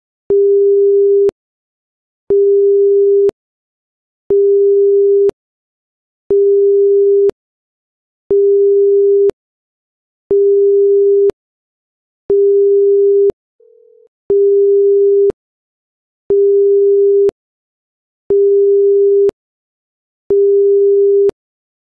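Seismic monitor's electronic alert beep sounding for a detected earthquake: a single steady mid-pitched tone, eleven one-second beeps spaced two seconds apart, with a faint short beep between the seventh and eighth.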